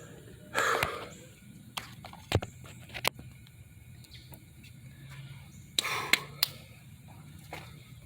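Hand work on car parts: a few sharp clicks and light knocks of tools and metal parts being handled, with two short scraping or rustling noises over a faint low hum.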